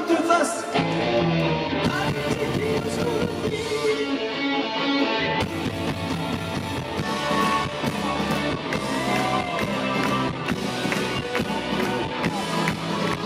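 Live rock band playing the song, with a male lead vocal and guitar over a full band.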